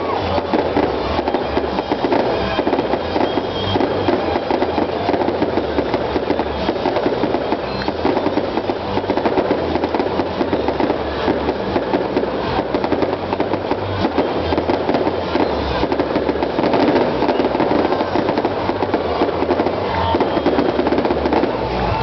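Aerial fireworks display: a dense, continuous crackling and popping of bursting shells, with a few faint whistles near the start and the end.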